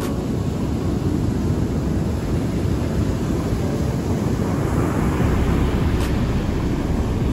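Heavy ocean surf breaking on a sand beach, a steady roar with wind rumbling on the microphone. The noise swells a little about halfway through as a wave breaks.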